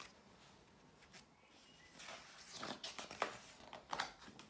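Pages of a large picture book being turned by hand, with a few soft paper rustles and flaps in the second half.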